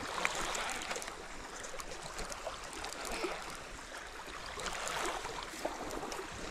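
Water lapping and trickling at the lake's edge, a steady wash with a few faint scattered clicks.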